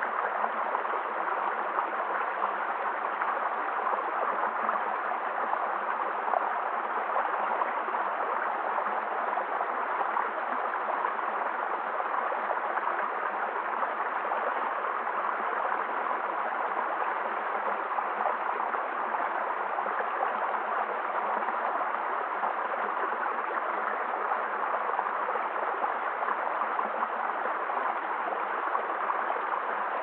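Shallow stream running over stones, a steady even rush of water.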